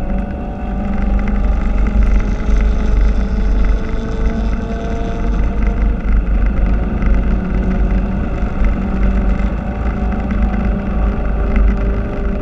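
In-cabin sound of a 2016 Ford Focus RS mk3, its 2.3-litre turbocharged four-cylinder pulling hard down a straight, the engine note climbing slowly over a heavy rumble of road and wind noise.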